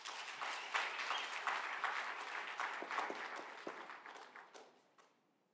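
Audience applauding, a dense patter of many hands that thins out and dies away about five seconds in.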